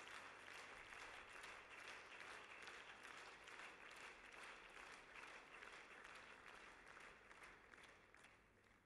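Applause, many hands clapping in a dense steady patter that fades away near the end.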